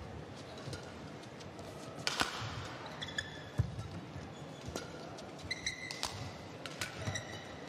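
Badminton rally: sharp racket strikes on the shuttlecock every second or so, with short shoe squeaks on the court surface as the players move.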